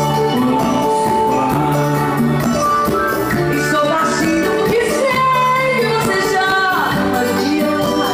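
A live band playing Latin-style music with hand percussion and a singer's voice.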